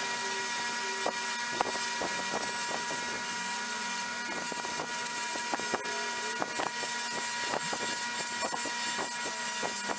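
A small electric motor, likely a shop power tool such as a buffer or grinder, running steadily with a constant whine, while scattered sharp clicks and knocks come from work against it.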